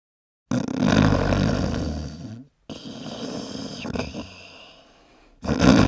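Loud human snoring in edited pieces: a long snore of about two seconds that breaks off abruptly, a quieter stretch, then a short loud snore near the end.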